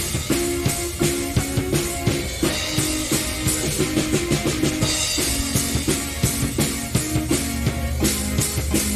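Keyboard and drum kit jamming instrumentally: the keyboard plays a line of held notes that step in pitch about every half second over a busy rock beat on kick and snare.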